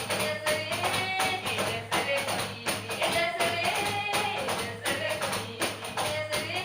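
Cape Verdean batuque music: a fast, even beat of hand percussion with a melody of long held notes over it.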